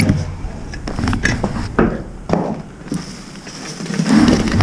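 Irregular knocks and clunks of a firefighter's gear against a metal ladder and ceiling joists while climbing up into an attic, with a low rumble near the end.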